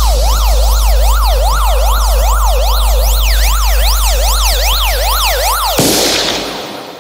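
An electronic siren effect in a dance-music mix: a fast up-and-down wail, about two and a half sweeps a second, over a steady deep bass tone. It cuts off about six seconds in into a noisy swish that fades away.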